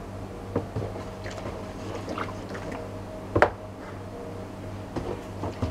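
Wooden spatula stirring a foamy soap solution in a plastic basin, dissolving the N70 surfactant for homemade dishwashing liquid: soft sloshing and squishing of liquid and suds. There are a few light knocks, the sharpest about three and a half seconds in. A steady low hum runs underneath.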